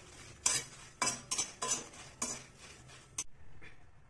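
A spatula scraping and stirring dried red chillies and coriander seeds around a hot aluminium kadai as they roast in a little oil, about six quick strokes that stop suddenly about three seconds in.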